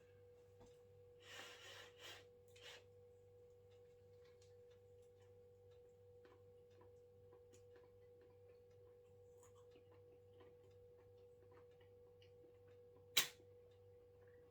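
Near silence: quiet room tone with a faint steady hum. A brief rustle comes about a second and a half in, faint ticks are scattered through, and one sharp click sounds near the end.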